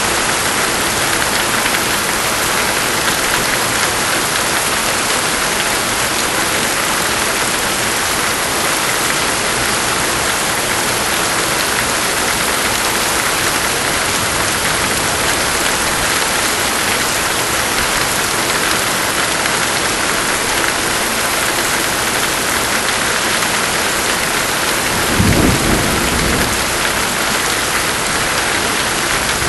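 Steady pouring rain, with a single rumble of thunder near the end.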